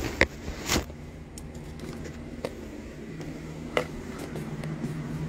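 Handling noise of small objects: a sharp click about a quarter second in, a short rustle just after, and a couple of fainter clicks later, over a steady low hum.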